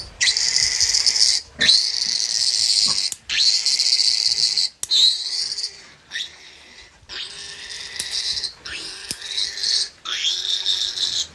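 Newborn piglet squealing while its needle teeth are being clipped: a string of long, high-pitched squeals with short breaks for breath, softer for a moment about six seconds in.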